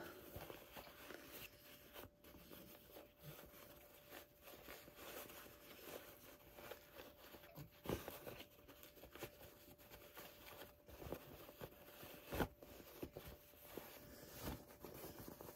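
Faint rustling and rubbing of a sewn fabric ear being turned right side out by hand, with a few soft knocks, over a faint steady hum.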